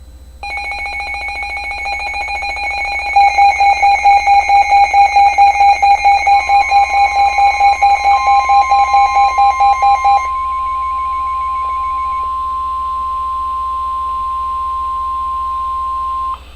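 A weather radio receiver's pulsing alert beeping, which gets louder about three seconds in and stops about ten seconds in. Overlapping it, the steady single-pitch NOAA Weather Radio warning alarm tone (1050 Hz) starts about six seconds in and holds for about ten seconds before cutting off sharply. The tone signals an incoming warning broadcast, here a flood warning.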